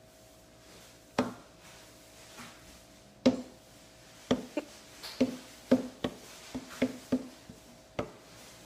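A series of about a dozen sharp knocks and taps over a faint steady hum: two loud ones about one and three seconds in, then lighter ones coming irregularly about twice a second.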